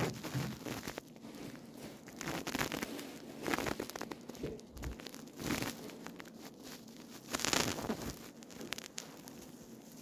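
Ringneck parakeet nibbling at its foot and preening right at the microphone: irregular crackly, crunchy rasps and rustles, with a few louder bursts.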